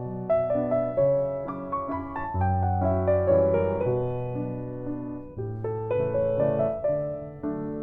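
Background piano music: single notes struck in a slow, gentle melody over sustained low notes.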